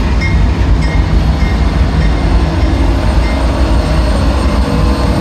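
CSX diesel-electric freight locomotives passing at close range: a loud, deep, steady rumble of engines running and steel wheels rolling on the rails. A grade-crossing bell dings faintly in repeated strokes.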